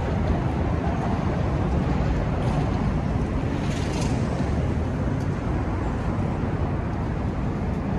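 Steady city street traffic noise, with a brief hiss about four seconds in.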